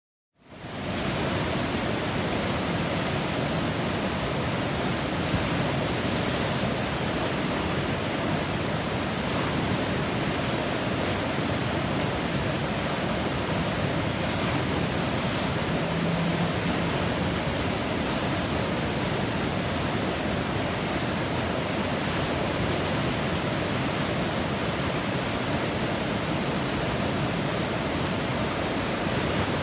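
Steady rushing of a river's whitewater rapid, the standing wave being surfed, fading in from silence about half a second in and then holding even.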